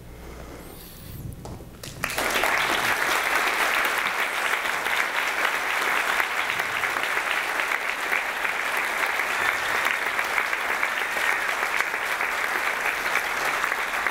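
Audience applauding. The applause breaks out suddenly about two seconds in and stays steady, after a faint low rumble at the start.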